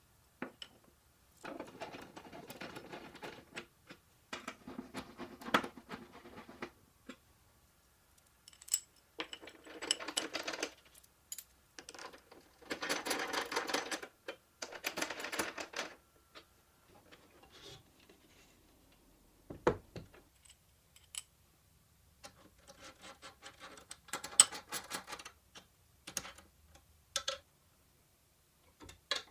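Aluminium extrusion parts and bolts being fitted and tightened with a hex key: several bursts of rapid metal clicking and scraping, a couple of seconds each, with quiet gaps between them and one sharp knock about two thirds of the way through.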